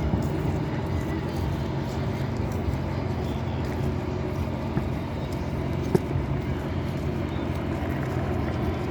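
A steady low engine hum, with one sharp click about six seconds in.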